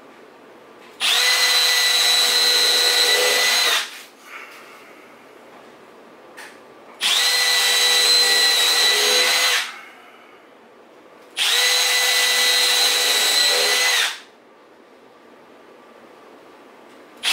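Cordless drill boring pilot holes into 2x6 wood boards: three runs of about three seconds each, a steady whine that spins up and winds down, with short quiet pauses between.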